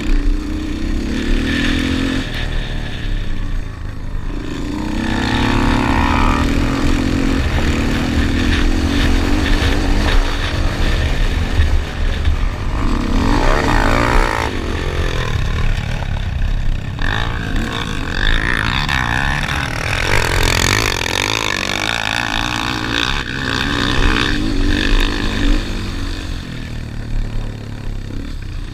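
Yamaha Raptor 250 quad's air-cooled single-cylinder four-stroke engine running hard at race pace, its pitch rising and falling again and again as the throttle is worked through the track, with a constant low wind rumble on the helmet-mounted microphone.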